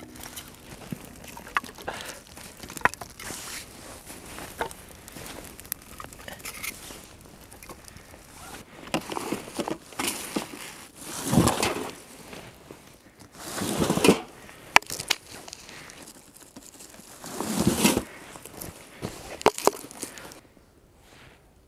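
Rustling and crackling handling noise, with many small clicks and three louder swishing rustles in the second half.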